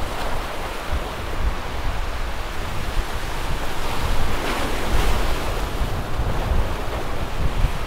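Ocean surf washing steadily while wind buffets the microphone, a continuous low rumble and hiss that swells slightly about four to five seconds in.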